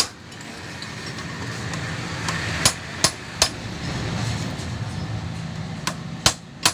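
Hammer blows on metal: scattered sharp strikes, closing into a quick run of about three a second near the end. A low rumble swells up through the middle and fades out.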